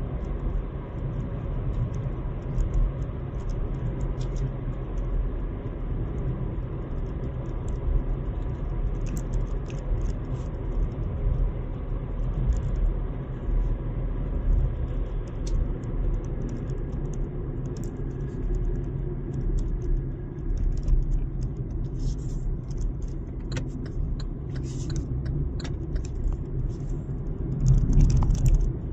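Steady low rumble of a car's engine and tyres on the road, heard from inside the cabin while driving. Light clicking rattles come in over the second half, and the rumble swells louder near the end.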